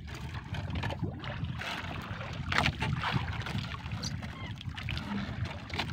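Small outrigger fishing boat's engine running with a steady low rumble, under wind and water noise, with a few brief splashes of the wet net being hauled aboard.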